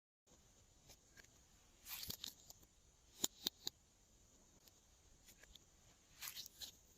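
Glossy slime being handled by hand: soft, wet squishing and crackling, with three sharp little pops or clicks about three seconds in, like air bubbles bursting.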